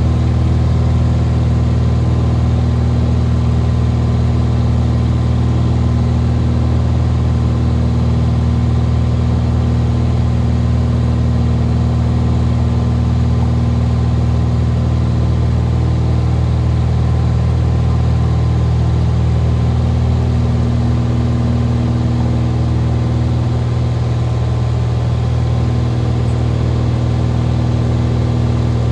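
Cessna RG's piston engine and propeller running steadily, a constant even drone with no change in pitch.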